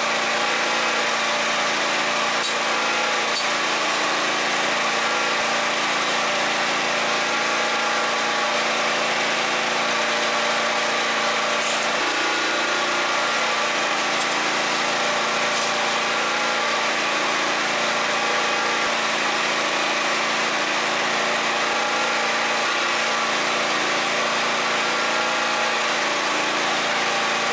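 Predator 8750 portable gasoline generator engine running steadily while powering a TIG welder.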